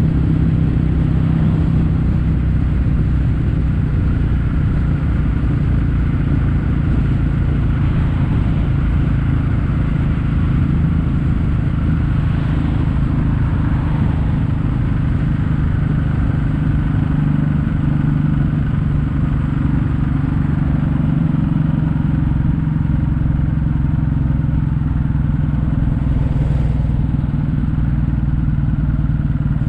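Kawasaki W800's air-cooled parallel-twin engine running steadily under way through Yamato stainless-steel Cabton-type silencers, heard at their standard sound.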